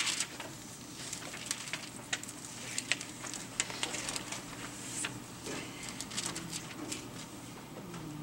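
Scattered light clicks and rustles of pages being handled on a music stand, irregular and uneven in spacing.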